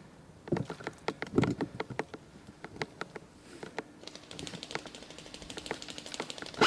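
Irregular clicks and knocks, a few sharper ones in the first seconds, then a fast, faint rattle of clicks through the second half.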